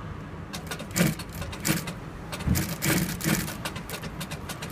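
Hanhai single-needle cylinder-bed lockstitch sewing machine with unison feed stitching in short runs, starting and stopping about a second apart as the work is guided, over a steady motor hum.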